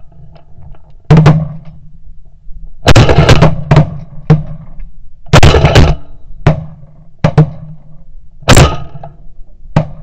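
A volley of shotgun blasts fired at geese overhead, about a dozen shots from more than one gun. They come in quick bunches about three and five and a half seconds in, with single shots between.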